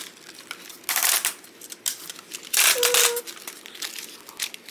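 Hard plastic parts of a large Transformers robot toy clicking and clattering as its limbs are swung and snapped into place, with two louder bursts of rattling, about a second in and near three seconds.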